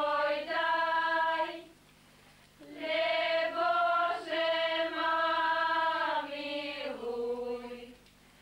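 Women's voices singing a slow folk song together in long held notes. There is a short break about two seconds in, and the singing stops near the end.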